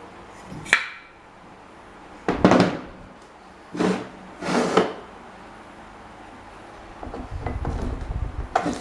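Workshop handling noises: a sharp knock, a few short scraping bursts, and a low rattling rumble near the end, as tools and old fan parts are handled on a bench.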